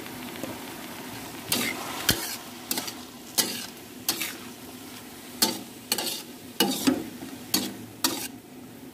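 Sliced bell peppers, onion and mushrooms sizzling in a hot wok while a spatula stirs them. From about a second and a half in, the spatula gives about a dozen sharp scrapes and knocks against the wok.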